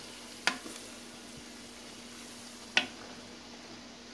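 Carnitas (pork pieces) frying in lard in an aluminium pot with a blended milk and spice mixture just stirred in, giving a steady sizzle. A wooden spoon knocks against the pot twice during the stirring, once about half a second in and again nearly three seconds in.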